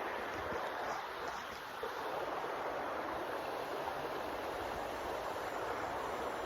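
Creek water running steadily over shallows: an even rushing.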